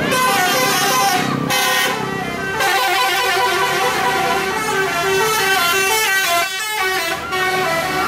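Coach bus 'telolet' horn, a multi-tone air horn playing a quick tune of stepped notes over and over.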